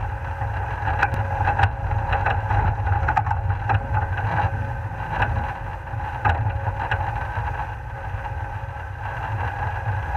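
Off-road 4x4 driving along a rutted dirt track, heard from a camera on its bonnet: a steady low engine rumble with wind on the microphone, and frequent knocks and rattles as it jolts over bumps.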